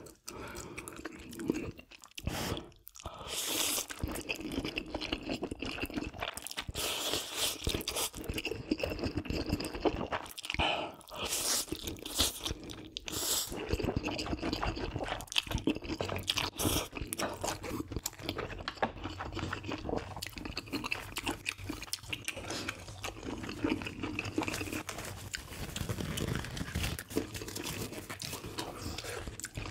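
A person eating close to the microphone: continuous chewing and biting with many small mouth clicks and crunches, broken by a short pause a couple of seconds in.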